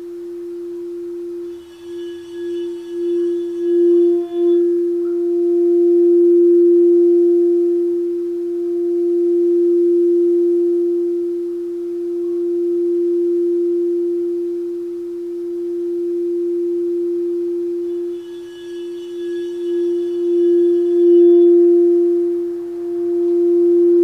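Crystal singing bowl sounding one steady, sustained tone that slowly swells and ebbs. Twice, about two seconds in and again around eighteen seconds, a bright shimmer of high overtones with a wavering level rises above it as the bowl is played.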